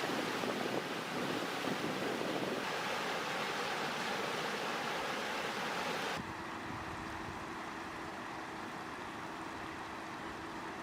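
Steady rushing noise of fast floodwater mixed with wind on the microphone. About six seconds in it cuts off abruptly to a quieter low rumble with a faint steady hum.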